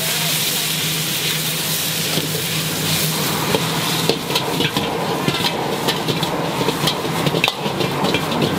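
Pad thai noodles sizzling in a hot wok while a metal ladle stirs and scrapes them against the pan. The sizzle is loudest in the first few seconds; from about four seconds in, the ladle's quick clinks and scrapes come through more.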